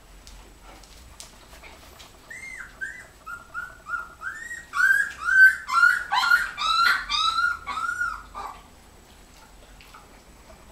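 Three-week-old Alaskan Malamute puppies whining: a run of short, high, arching squeals, about two or three a second, beginning about two seconds in, growing louder and overlapping in the middle, then stopping.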